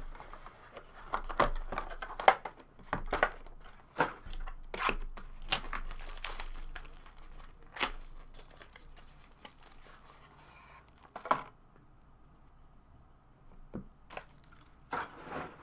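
Plastic shrink wrap being torn off a trading-card hobby box and crumpled, a quick run of sharp crinkling tears for the first eight seconds or so, then quieter handling with a few more crackles.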